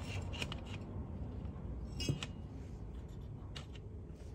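Hands handling the hollow plastic case of a Fluke 21 multimeter, giving a few light clicks and taps, the sharpest about two seconds in.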